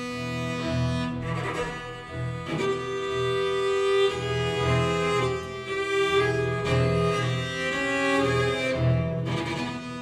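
String ensemble of violins, cellos and double bass playing sustained bowed chords that shift every second or so over a pulsing low part.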